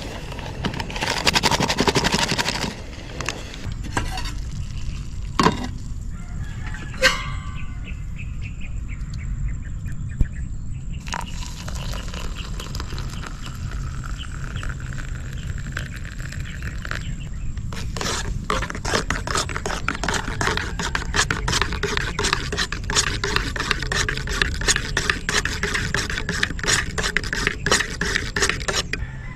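Instant coffee being made in a stainless steel mug. Powder is shaken in from a sachet, there is a sharp metal clink, and then hot water is poured from a steel pot for about six seconds, the pitch rising slightly as the mug fills. For the last ten seconds or so a spoon stirs quickly, clinking rapidly against the inside of the mug.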